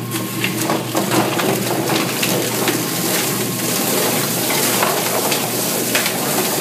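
Drum-type poultry plucker running: its motor hums steadily while a wet chicken tumbles against the rubber fingers of the spinning plate, with many irregular slaps and clicks over a hiss of spraying water.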